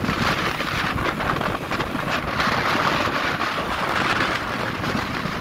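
Wind buffeting the microphone over the steady road and engine noise of a moving open vehicle.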